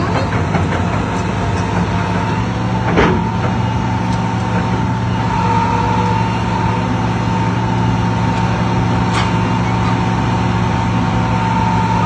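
Large tracked excavator's diesel engine running steadily during demolition work, with a constant high-pitched tone over the low drone. Two sharp knocks, about three seconds in and again near nine seconds.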